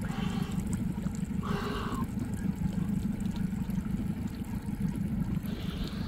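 Sea water sloshing and splashing around a swimmer and a large speared grouper at the surface, over a steady low rumble, with a brief splash about a second and a half in.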